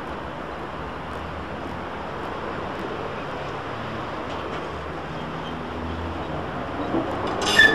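Articulated electric tram starting to pull away from a stop: a low steady hum over outdoor noise, growing slightly louder toward the end, with a sharp click near the end.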